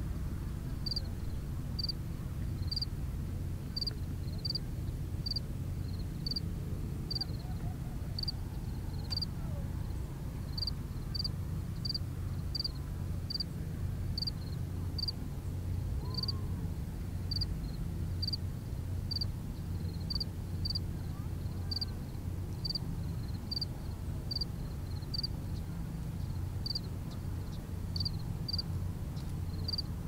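Short, high chirps from a small animal repeat steadily, a little more than once a second, over a steady low rumble.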